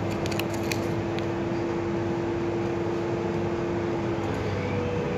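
Cabin running noise of a 4th-generation Solaris Urbino 12 city bus on the move: a steady drivetrain hum with a whine that jumps higher in pitch about four seconds in, and a few light clicks or rattles near the start.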